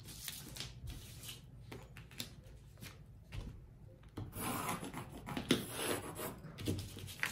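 Pencil scratching on drafting paper while a plastic pattern ruler and tape measure slide and rub across the sheet, in short bouts. The busiest stretch of scraping comes from about four to six seconds in.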